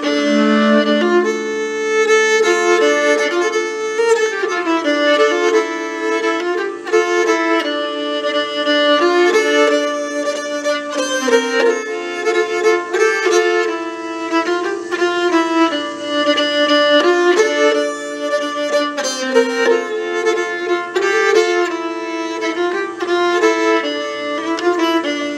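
Nyckelharpa (Cloud Nine Musical Instruments' Nyckelharpa #5, by Michael Allen) bowed in a quick Swedish folk melody, notes changing several times a second over a steady lower tone.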